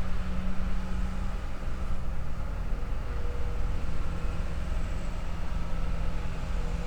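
Heavy forestry machine's engine running steadily, a constant low hum with no change in pace.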